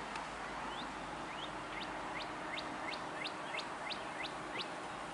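A small bird calling a quick series of about ten short, upward-sliding chirps, roughly three a second, over a steady outdoor hiss.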